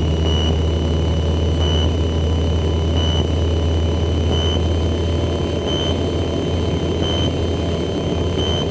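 Light aircraft engine and propeller droning steadily, heard from inside the cockpit, with a thin high tone running over it that swells briefly about every second and a half.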